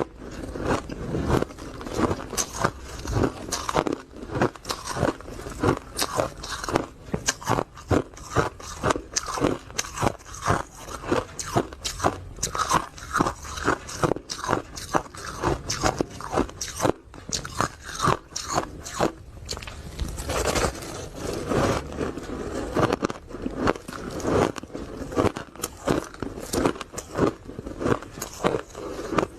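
Ice being bitten and chewed close to the microphone: a dense run of sharp, crunchy cracks, several a second, without pause.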